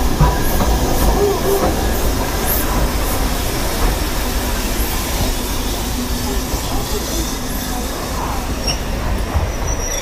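Passenger coaches of a steam train rolling slowly past close by: a steady rumble of wheels on rail with scattered clicks and a few faint wheel squeals.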